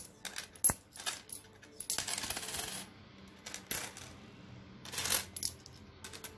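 Handfuls of dirham coins clinking and sliding against each other on a glass tabletop as they are picked out and sorted by hand. The clinks come irregularly, with a longer rattle about two seconds in.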